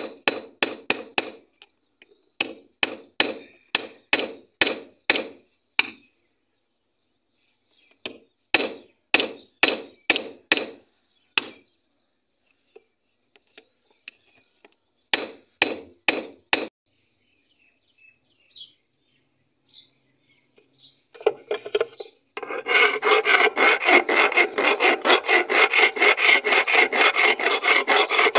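A hammer knocks repeatedly on a rusty claw-hammer head braced against an axe head, metal on metal, in three runs of quick, even blows. About 22 seconds in, a flat hand file starts rasping fast and steadily across the hammer's steel claw.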